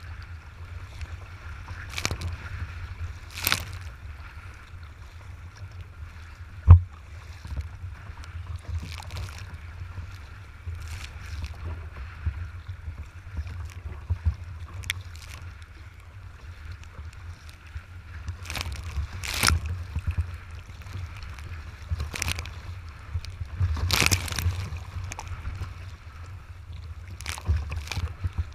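Choppy waves slapping and splashing against a kayak's bow at irregular intervals, over a steady wind rumble on the microphone. One sharp, loud thump about a quarter of the way in.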